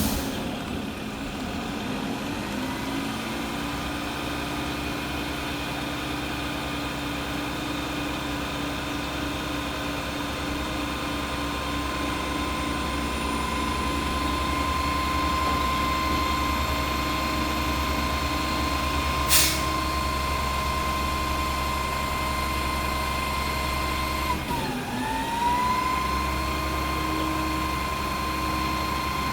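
Mack front-loader garbage truck's engine running steadily with a high whine over it. About two-thirds of the way in there is one sharp bang. The engine and whine dip briefly near the end, then pick up again.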